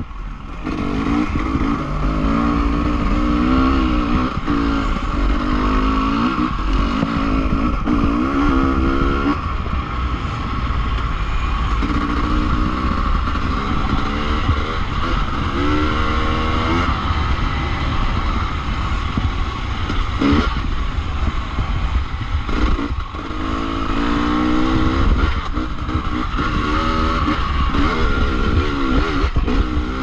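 Dirt bike engine under load, revving up and falling back over and over as the throttle is worked on and off.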